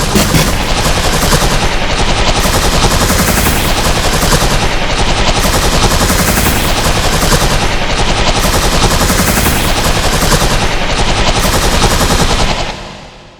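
A sound effect digitally layered over itself many times, making a harsh, dense, rapid crackling like continuous machine-gun fire, with slow sweeping changes in tone; it fades out about twelve and a half seconds in.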